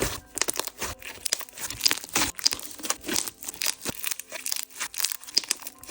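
Clear slay slime (coated clear slime mixed with butter slime) being squished and pressed by hand, giving a quick, irregular run of small crackles and pops.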